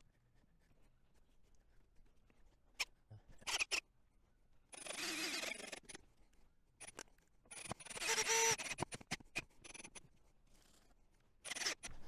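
Handling noise at an aluminium window frame: rubbing and scraping in two bursts about a second long, around five and eight seconds in, with scattered clicks and knocks between. A footstep on the board floor near the end.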